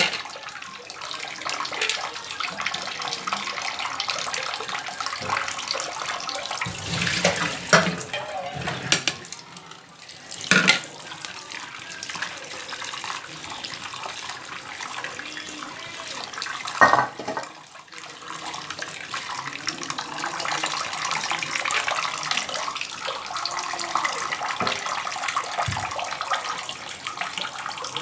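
Tap water running into a steel bowl in a stainless-steel sink while small dried fish are rubbed and rinsed by hand, with a few sharp knocks. This is the repeated rinsing of the dried fish to wash them clean.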